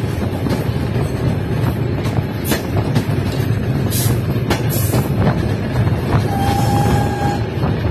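Brake van of a steam-hauled ballast train rolling along the track: a steady rumble with irregular clicks as the wheels cross rail joints. Near the end, a single high steady tone sounds for about a second.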